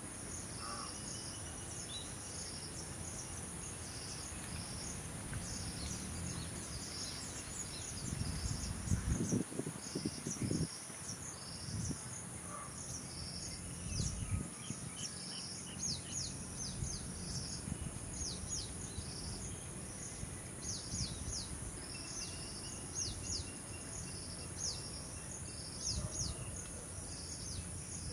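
Insect chorus: a steady high-pitched drone with rows of short, repeated chirps above it, and a few faint bird calls. Low rumbles come in about a third of the way through and again around the middle.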